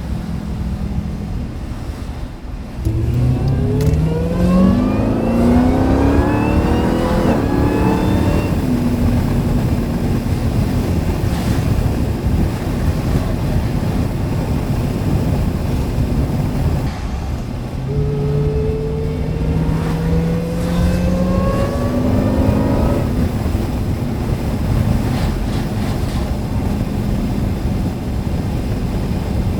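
Jeep Grand Cherokee Trackhawk's supercharged 6.2-litre V8 accelerating hard twice, its pitch climbing along with a high supercharger whine, over steady road noise.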